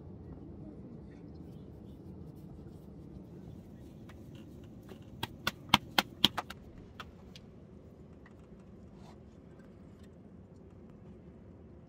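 Hands slapping a ball of bread dough back and forth between the palms to flatten it: a quick run of about six sharp slaps around the middle, over a low steady background noise.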